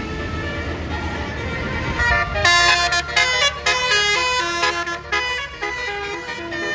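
Low rumble of a bus engine, then, about two and a half seconds in, a basuri telolet multi-tone air horn plays a fast melody of short stepped notes, loud.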